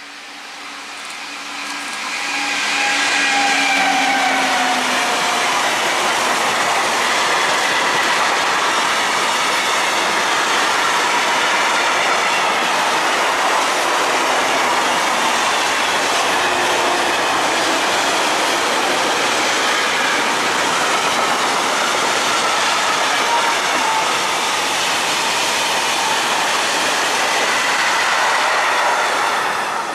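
An electric-hauled freight train passes close by: the locomotive comes up loud within the first few seconds with tones that slide down in pitch, then a long run of tank and covered wagons goes by with a steady rattling rush of wheels on rail and a faint wheel squeal. The sound drops away as the last wagons pass at the end.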